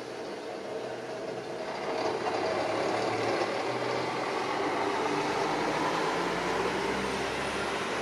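A vehicle passing, a steady rumble with a low hum in it that swells about two seconds in and stays up.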